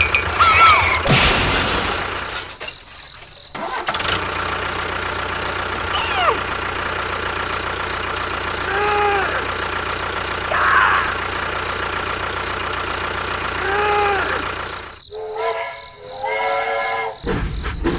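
A motor running steadily, with short tones that rise and fall heard over it several times.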